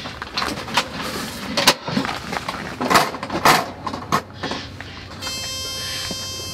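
Clicks and metal knocks as a round kerosene heater and its wire guard are handled, a few sharp loud ones among them. Near the end a steady buzzing tone sounds for about a second and cuts off sharply.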